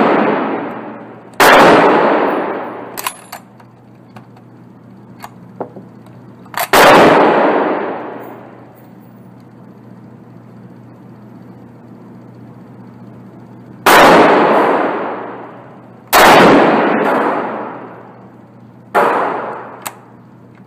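A .303 Lee-Enfield No.4 Mk 2 bolt-action rifle fired five times at uneven intervals, each shot echoing for a couple of seconds in an indoor range. Short clicks of the bolt being worked come between some of the shots.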